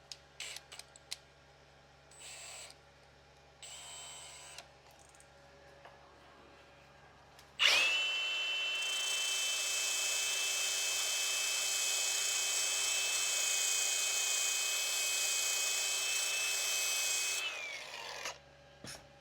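Handheld electric grinder starts about eight seconds in, runs steadily at high speed for about ten seconds taking a part down for a tighter fit, then winds down. Light clicks and handling knocks come before it.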